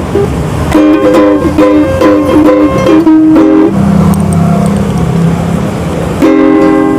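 Instrumental music: a plucked string instrument playing short repeated chords, then a lower held passage, and chords again near the end.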